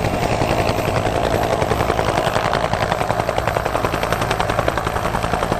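Helicopter rotor sound, a rapid, even chopping held at a steady level.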